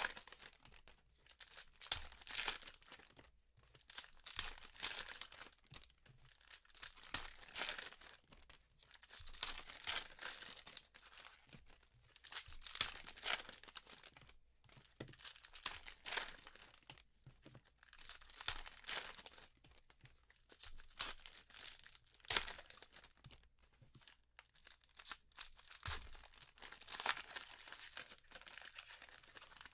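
Foil wrappers of 2015 Panini Prizm football card packs being torn open and crinkled by gloved hands, in repeated spells of crackling a second or two long.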